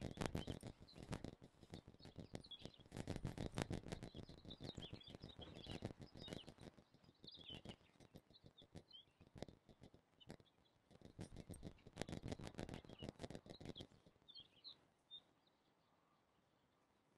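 Soft rustling and light clicking from hands working a dome tent's stakes and guy lines, which stops about 14 seconds in. Birds chirp faintly.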